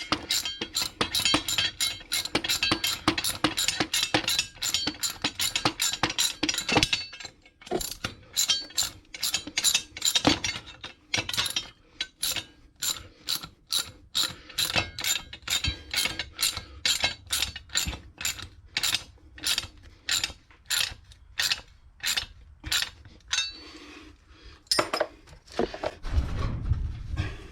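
Socket ratchet wrench clicking as a masonry expansion anchor (Dynabolt) is run down, in quick runs of clicks at first and then in steady strokes about two a second. A brief low scraping rumble comes near the end.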